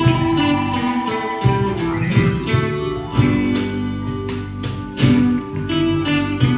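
A live band plays an instrumental passage to a steady beat: acoustic and electric guitars, bass guitar, keyboard and cajón.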